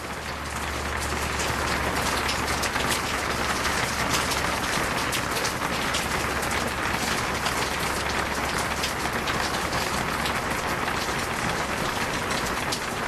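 Heavy rain pouring down, with many individual drops striking close by. It grows louder over the first second or two, then holds steady.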